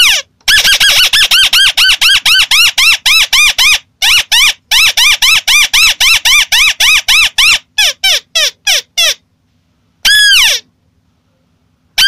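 White-browed crake lure-call recording: a loud, fast chattering series of arched notes, about five a second. The series slows and breaks off after about nine seconds, and one more short call comes a second later. It is the bird's noisy contact call, played to draw other crakes in.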